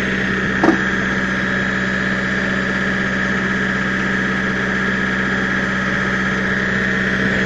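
Screw-cone log splitter spinning under engine power: a steady, unchanging drone with a higher whine on top. A short knock comes about two-thirds of a second in.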